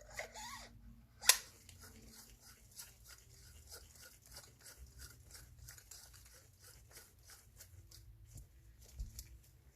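Faint handling noises: a sharp click about a second in, then a run of soft, small ticks and clicks.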